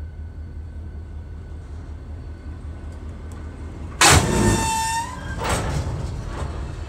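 Low steady rumble, then about four seconds in a sudden loud bang from the railcar impact test, with metallic ringing that holds for about a second.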